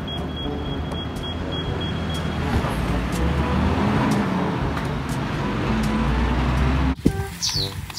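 Garbage compactor truck's diesel engine running in street traffic, a steady low rumble that cuts off sharply about seven seconds in.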